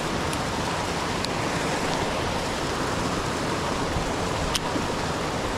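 Water rushing and churning over a rock bar into a creek pool: a steady, even wash of white water, with a few faint ticks.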